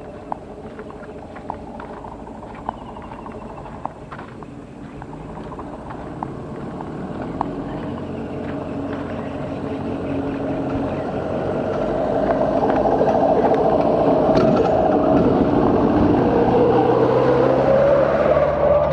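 A small engine running steadily, growing louder about two-thirds of the way in and rising a little in pitch near the end, with a few sharp clicks in the first seconds.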